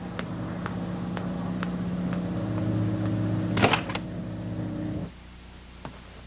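A steady machine hum with faint, evenly spaced clicks about twice a second and one louder clack a little before four seconds in. The hum cuts off about five seconds in.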